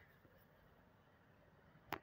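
Near silence: faint outdoor background, broken by one short sharp click near the end.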